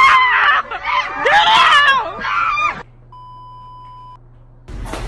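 A person screaming and crying out in high, wavering cries for nearly three seconds. Then a steady test-tone beep, the tone played over colour bars, sounds for about a second, and a loud noisy sound starts near the end.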